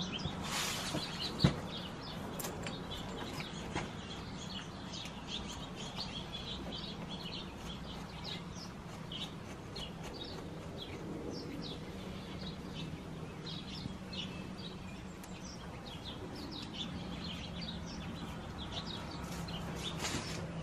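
Small birds chirping, many short high calls scattered throughout, over a faint steady low hum; a single click about a second and a half in.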